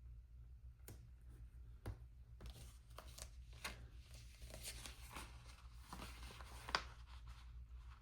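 Faint rustling of paper and sticker sheets with scattered light taps and clicks as planner stickers are peeled and pressed onto the pages; one sharper tap near the end.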